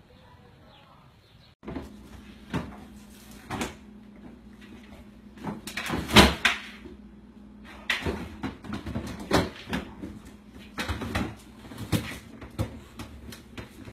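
A dog rummaging in an open refrigerator: a run of irregular knocks, clatters and rattles from containers and shelves being pushed about, the loudest about six seconds in.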